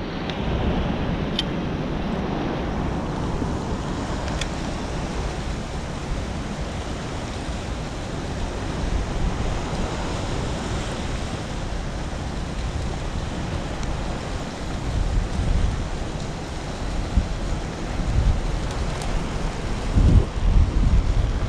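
Steady wind and sea noise at the pier rail, with low gusts of wind buffeting the microphone growing stronger near the end.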